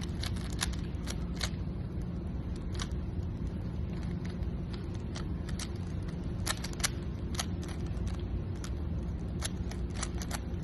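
Rubik's cube layers being twisted quickly, giving a run of irregular sharp clicks, several a second, over a steady low hum.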